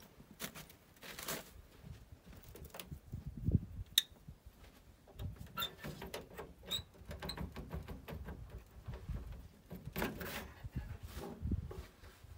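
Footsteps crunching in fresh snow and clothing rustling, with scattered sharp metallic clicks and clinks as someone climbs onto an MTS-52 tractor. A louder rattle near the end as the tractor's cab door is opened.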